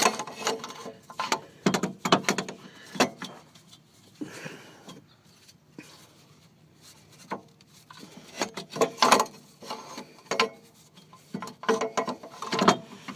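Irregular metal clunks, clicks and scrapes as a starter motor is worked up into its mounting against the engine, with a quieter lull in the middle.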